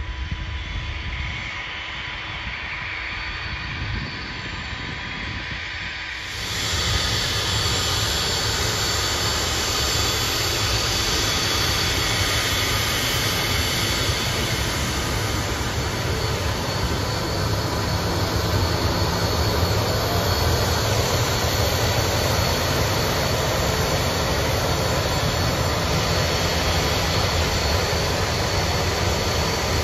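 Jet turbofan engines of a four-engine BAe 146-family airtanker running as it taxis, a steady whine over a low rumble. Heard at a distance at first, then louder and closer after a cut about six seconds in.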